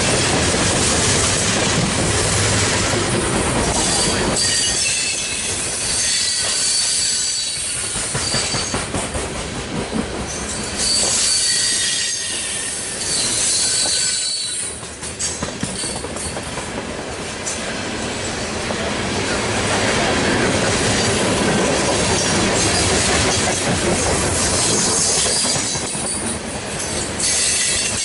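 Loaded coke hopper cars of a freight train rolling past close by: a steady rumble and clatter of steel wheels on the rails, with thin high-pitched wheel squeals coming and going.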